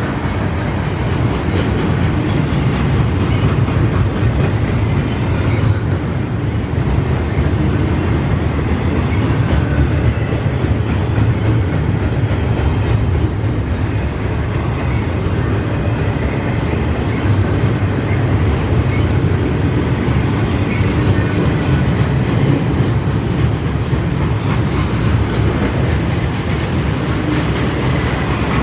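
Freight train cars rolling past on the rails, a loud, steady noise that is heaviest in the low end.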